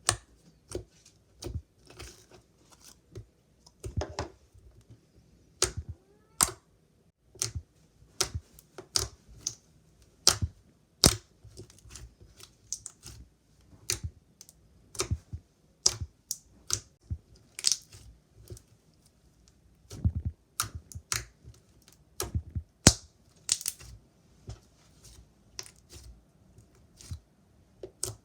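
Slime being squished and pressed by hand, giving a string of sharp, irregular clicks and pops about one or two a second.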